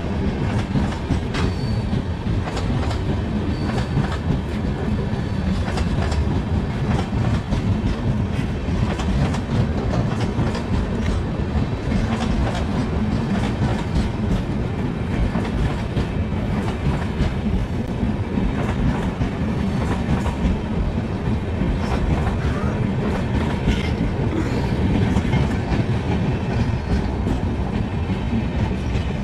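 Indian Railways LHB passenger coaches rolling past close by: a steady heavy rumble with wheels clattering over the rail joints, many short clicks.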